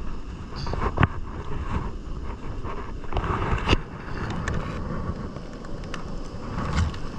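Shallow seawater sloshing and splashing as hands grope among the rocks for the catch, with wind rumbling on the microphone and a few sharp knocks, the loudest about a second in and another near the middle.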